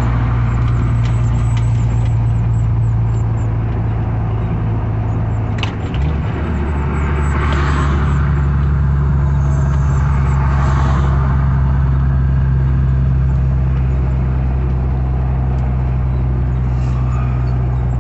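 Truck engine and road noise heard from inside the cab while cruising on the highway, a steady drone. About six seconds in the sound briefly dips and the engine note resumes at a different pitch.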